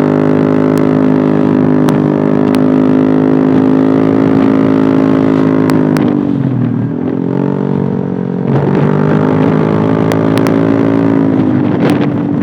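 Yamaha Aerox 155 scooter's single-cylinder engine running through an Eternal aftermarket racing exhaust while ridden: a steady, fierce-sounding drone at cruising throttle that drops as the throttle eases about six seconds in, then picks up again and holds. A few short sharp clicks come through now and then.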